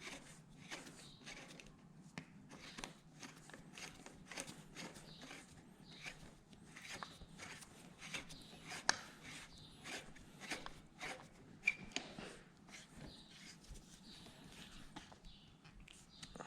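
Faint, irregular clicks and taps of hand tools and metal handguard parts being handled and adjusted while a handguard clamp is refitted on a motorcycle handlebar, over a low steady hum.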